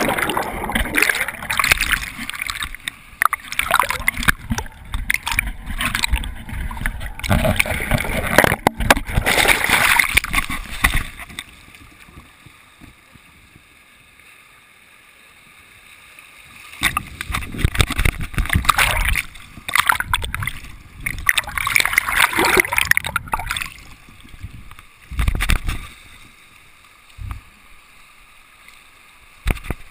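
Fast river water splashing and churning over a camera dipped in and out of the surface, with bubbly underwater gurgling. Loud irregular surges come in two long spells with a quieter stretch between them, then a short splash near the end.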